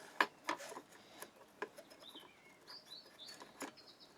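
Light clicks and taps of an aluminium tube and a crossbow bolt shaft being handled, the loudest about a quarter second in. A bird chirps faintly several times in the background from about two seconds in.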